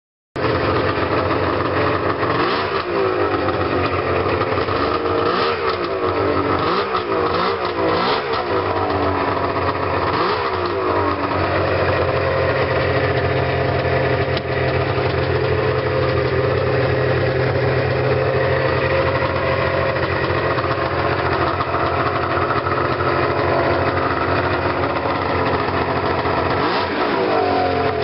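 1997 Arctic Cat Thundercat snowmobile's 900cc three-cylinder two-stroke engine, stationary. It is blipped several times in quick succession over the first ten seconds or so, then idles steadily, with one more short rev near the end.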